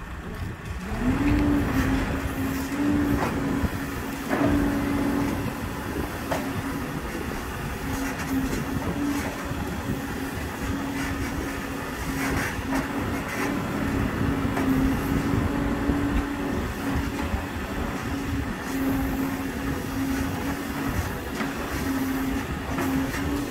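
Backhoe loader's diesel engine running hard: it revs up about a second in and holds a steady high note over a heavy rumble, with a few knocks from the working machine.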